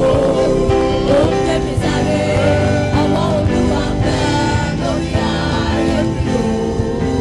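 Gospel worship music: held, sustained chords with singing voices over them.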